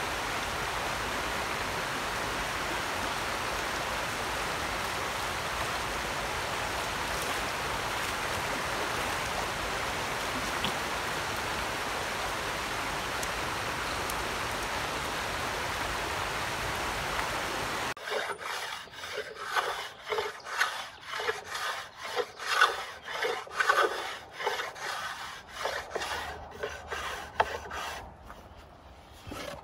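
A rocky creek runs steadily. About two-thirds of the way in, that gives way to a hand blade shaving wood on a shaving horse: short scraping strokes, about two a second, as a striped maple paddle blank is worked down.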